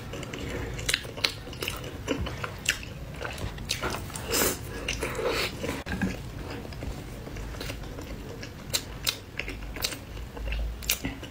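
A person chewing and biting into spicy pork in chili oil, close to the microphone: irregular mouth clicks and smacks with no speech.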